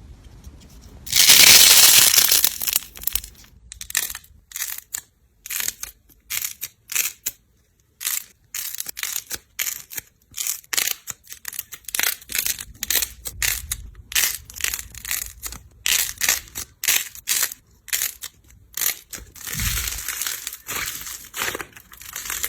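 Slime being squeezed and pressed by hand: a loud crunchy squish about a second in, then a long run of short crackles and pops several times a second.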